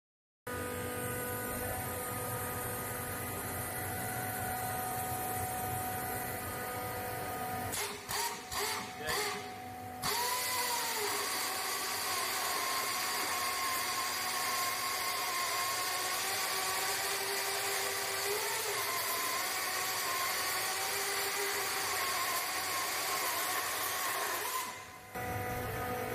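Magnevane M15 Swordfish pneumatic chainsaw running on compressed air at 5 bar and sawing through a wooden log, a steady machine hiss and whine. The sound breaks off in a few short stutters about eight to ten seconds in and dips once more shortly before the end.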